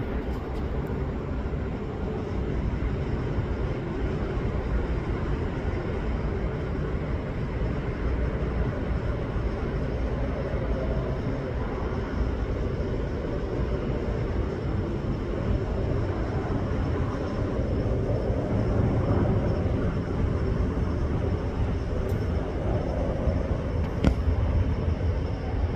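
Boeing P-8A Poseidon's twin CFM56 turbofan jet engines overhead: a steady low rumble that grows a little louder past the middle. A short knock comes near the end.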